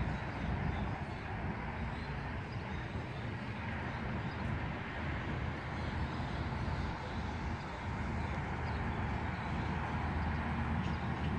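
Steady vehicle and road-traffic noise, with a constant low hum.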